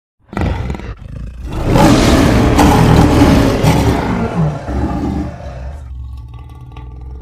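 Custom King Kong roar sound effect: a giant ape's roar that starts a moment in, swells to a loud peak over the next second or so, then fades into a low, rumbling tail.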